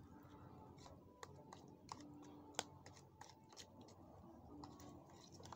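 Faint, irregular clicks and scrapes of a utensil stirring a thick mashed-fruit-and-egg hair mask in a small plastic tub, with one sharper tap a little past halfway.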